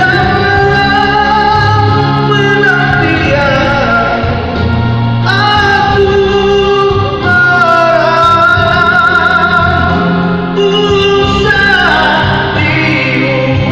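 A singer performs a Malay rock song over amplified backing music through a PA. The voice holds long notes with vibrato and slides between them.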